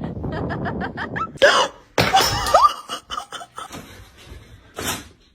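A person laughing in a quick run of short repeated bursts, then breathy gasps and scattered noises.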